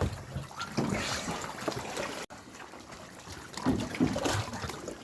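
Shallow water trickling and splashing in irregular bursts.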